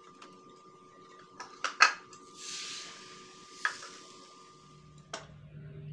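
Small non-stick frying pan knocking against a plate as a cooked crepe is turned out of it: a few sharp clacks, the loudest about two seconds in, with a short hiss just after and another knock about a second before the end.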